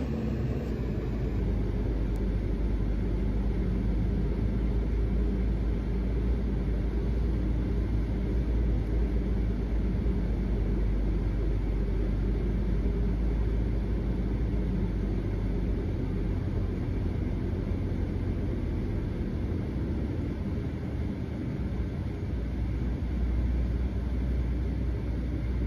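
Steady low rumble of a running vehicle, even and unchanging, with no distinct events.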